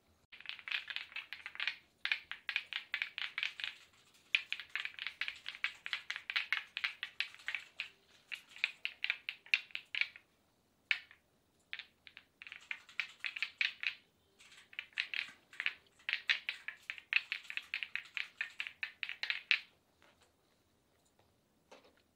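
Hands massaging a bare forearm and hand, the skin-on-skin strokes making quick runs of taps and pats, several a second, in bursts of a few seconds with short pauses between.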